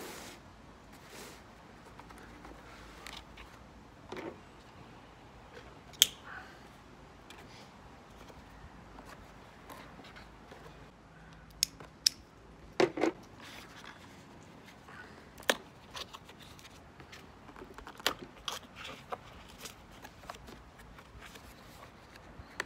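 Scattered sharp clicks, taps and light rustles of hands handling a small wooden slatted crate and its cardboard packaging, with the loudest knocks about six seconds in and again around the middle.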